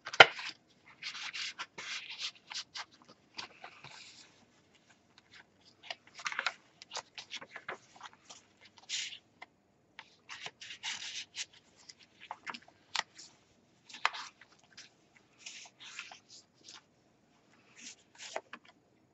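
Paper rustling in short irregular bursts as the pages of a handmade paper junk journal, a paper envelope and small tags are handled and turned, with a sharp tap right at the start and a few lighter clicks.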